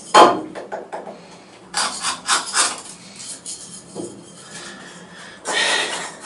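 A folding knife blade, the Benchmade Barrage, shaving and scraping a small softwood block in short strokes, with a sharp knock just after the start and a longer scrape near the end. The knife is cutting awkwardly in this squaring work.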